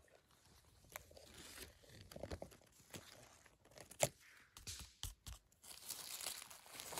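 Irregular crunching and rustling of dry forest leaf litter and twigs, with a sharp crack about four seconds in.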